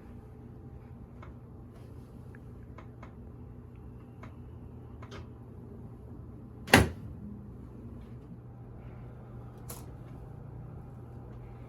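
Upper-neck chiropractic adjustment: one loud, sharp knock about seven seconds in, with a smaller knock near ten seconds and light handling clicks over a steady low hum.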